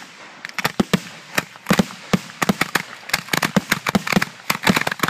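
Fireworks going off close by as a finale: a rapid, irregular string of sharp bangs and pops, several a second, coming thicker toward the end.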